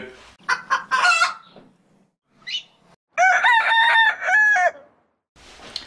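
Chickens: a few short clucks, then a rooster crowing once, a long crow in several joined parts a little past halfway.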